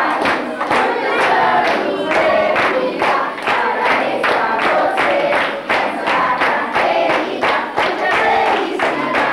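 A crowd of children singing a birthday song together, clapping in time about twice a second.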